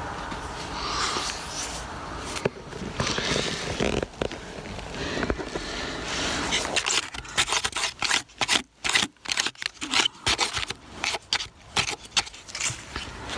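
Scraping, crackling rustle, turning about halfway through into a quick, irregular run of sharp crunches and knocks.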